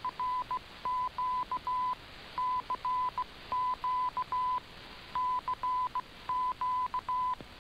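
Morse code sent as one steady beeping tone in short and long beeps, spelling a repeated CQ DX call, heard over shortwave hiss in a received AM broadcast.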